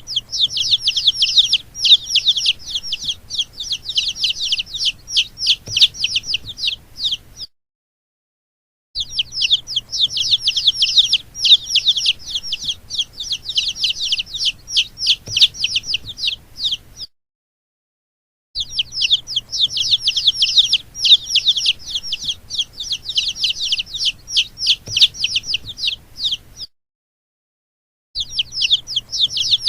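Baby chicks peeping continuously: many rapid, high-pitched, falling peeps overlapping. The calling comes in stretches of about eight seconds broken by brief silences, with a faint low hum beneath.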